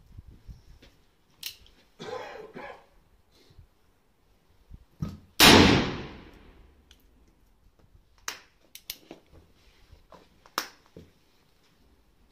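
A single shot from a Pietta Remington 1858 Sheriff .44 cap-and-ball revolver loaded with 1.5 g of black powder, about five and a half seconds in, loud and trailing off over about a second under the range's roof. Quieter clicks and knocks come before it, and a few fainter sharp cracks follow.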